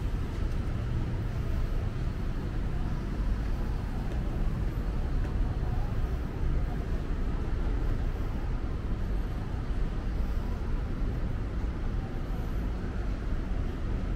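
Steady road traffic noise: a continuous low rumble of passing vehicles, with no single event standing out.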